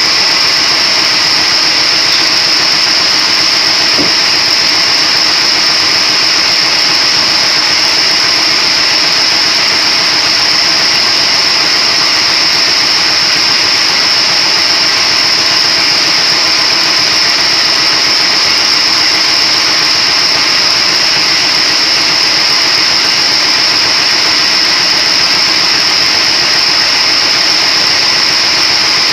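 A splitting machine running steadily, a continuous mechanical drone with a strong, high, steady whine over it and no change in speed.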